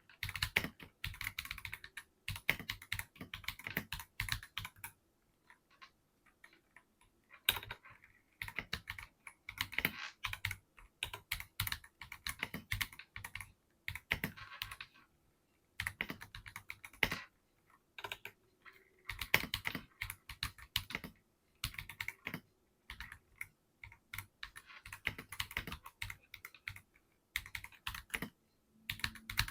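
Typing on an Akko 5075B Plus mechanical keyboard with blue switches: rapid runs of key clicks in spurts of a few seconds, with brief pauses between them.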